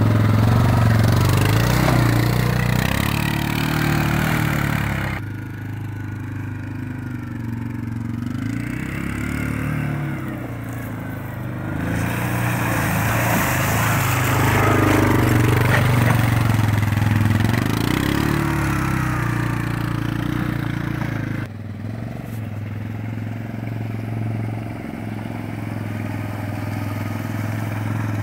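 Yamaha Grizzly ATV engine running as it drives close by, its pitch rising and falling with the throttle. The sound changes abruptly twice, about five seconds in and about two-thirds of the way through.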